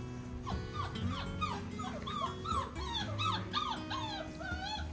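One-month-old Noble Shepherd puppy (grey wolf × German Shepherd hybrid) whining: a quick run of short, high, arched whines, about three a second, starting about half a second in.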